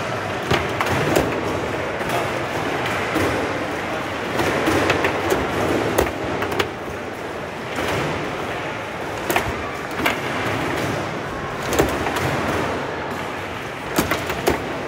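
Foosball in play: irregular sharp clacks and knocks of the ball striking the plastic players and the table, and of the rods being worked, over a steady background noise.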